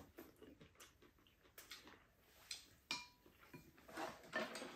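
Quiet tableware sounds: a metal spoon and chopsticks making a few light, scattered clicks against ceramic bowls, with soft eating noises near the end.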